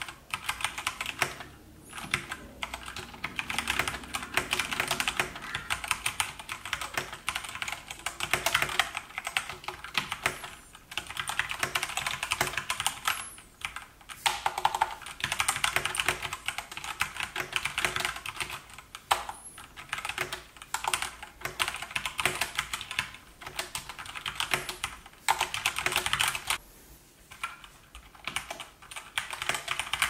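Fast, continuous typing on a Keychron K4 wireless mechanical keyboard with Gateron Brown switches: a dense clatter of keystrokes, broken by a few short pauses, the longest near the end.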